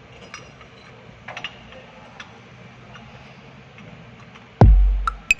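Faint scattered light clicks and ticks, then about four and a half seconds in electronic music cuts in with a deep, booming drum-machine bass drum hit.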